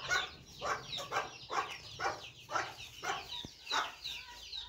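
A chicken clucking in a steady series, about two short clucks a second.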